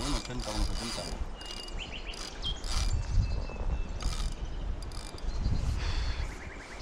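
A large 8000-size fishing reel clicking in short runs of quick ticks as a wels catfish is played on a bent rod.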